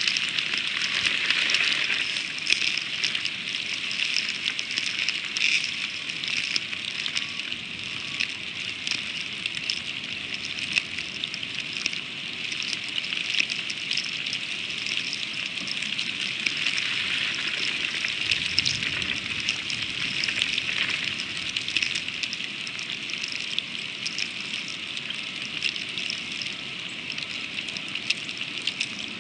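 Freezing rain pattering steadily on a snow-covered eagle nest: a dense hiss made of many fine ticks.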